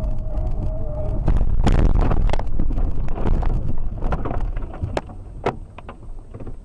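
A car leaving the road and crashing into woodland: over the running road noise, a held whine in the first second gives way to a long run of crashing, scraping impacts as the car ploughs through trees and branches, with a few sharp knocks around five seconds in, before it dies down.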